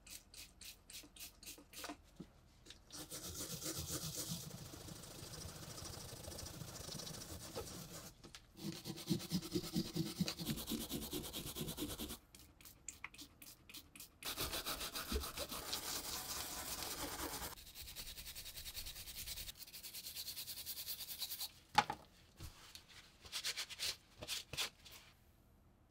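A small wire brush scrubbing the rusty, wet body of a padlock. It goes in runs of quick back-and-forth strokes, with short pauses, and there is a sharp click about three-quarters of the way through.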